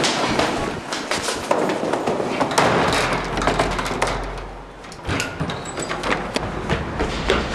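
Running footsteps on a hard floor, many quick irregular knocks, then a door pushed open as the runner goes through.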